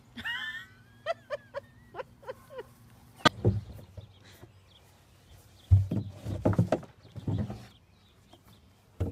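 A few short, high squeaks, then a run of heavy, dull thuds and knocks as a Hereford cow butts and tosses a black rubber tub feeder against the ground and fence. The thuds are loudest about six seconds in.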